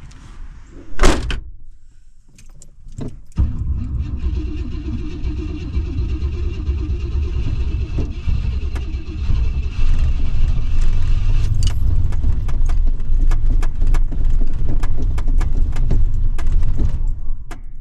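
Old Cadillac's engine being cranked, a low rumble with a rippling beat from about three seconds in until just before the end, with keys jangling on the ring. A single loud thump comes about a second in.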